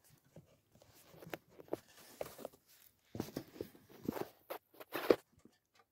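Bathtub drain fitting being handled and fitted into the tub's drain hole: irregular scrapes, clicks and light knocks, busier in the second half, with the sharpest knock about five seconds in.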